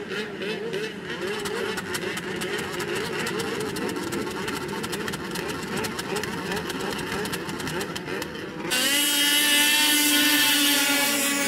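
Two-stroke snowmobile engines running with wavering engine notes. About three-quarters of the way through, the sound switches abruptly to a louder single engine held at steady high revs.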